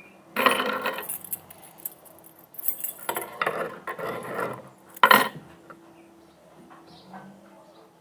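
Handling noise from slime being worked and pulled about by hand, in three bursts: about half a second in, a longer stretch in the middle, and a short sharp one a little after five seconds. The slime is still sticky at this stage.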